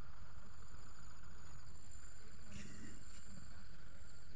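Steady, high-pitched insect drone, typical of crickets or cicadas in roadside vegetation, over a low steady rumble.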